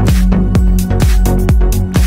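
Electronic dance music with a steady kick drum beating about three times a second over a sustained bass line and bright cymbal hiss.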